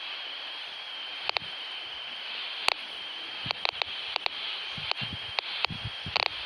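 Baofeng BF-F8HP handheld radio's speaker crackling with irregular sharp clicks over a steady hiss while receiving a strong FRS channel 10 signal as the radio is carried about. The clicks sound just like a Geiger counter; they start about a second in and come more often toward the end. This is a receiver fault that the owner says is not a bad connection and wonders may be an input gain filter failure.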